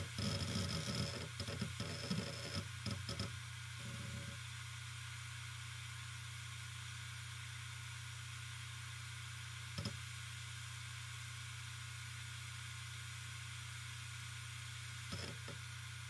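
Hard drive spinning with a steady low hum, its heads chattering in a quick, irregular run of clicks and ticks for the first few seconds as it boots up. After that the drive settles to its hum, with one click about ten seconds in and a couple more near the end.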